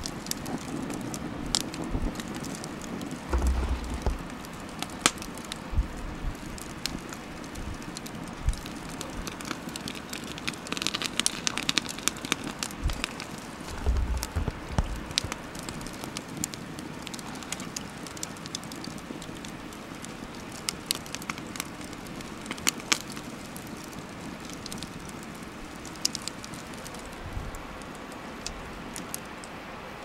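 Wood fire crackling, with many scattered sharp snaps and pops over a steady hiss. A couple of brief low rumbles come about 3 and 14 seconds in.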